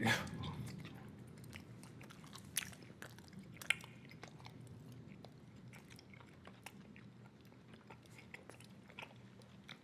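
Close-miked mouth chewing bubble gum: a run of soft wet smacks and sticky clicks at an irregular pace, with a sharper click a little under four seconds in.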